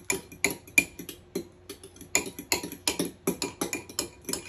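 Raw eggs being beaten in a glass bowl, a utensil clinking against the glass about three times a second, with a short pause about halfway through.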